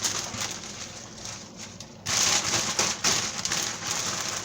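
Crackling, rustling noise of leafy greens cooking down in a pot of broth, which gets suddenly louder about two seconds in.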